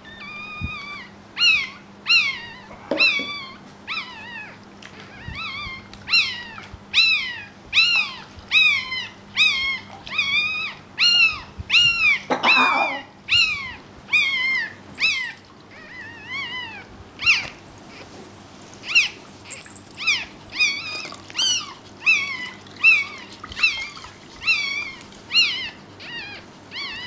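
Newborn Pekingese puppy crying: high-pitched squeaking cries repeated about one and a half times a second, each falling in pitch, with a brief rustle about halfway through.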